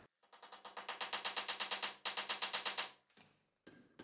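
A rapid, even ticking rattle of about eight ticks a second with a pitched tone through it, which stops suddenly, followed by a single sharp knock near the end.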